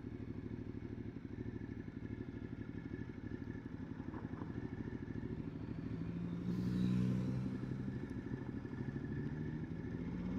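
Ducati Multistrada 1260 S V-twin engine running at low road speed, with the engine note swelling louder for about a second around seven seconds in.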